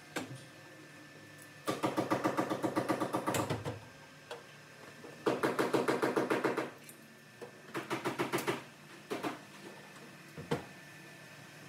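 A power tool rattling in three bursts of rapid strokes, about eight a second, each lasting one to two seconds, followed by two brief stabs.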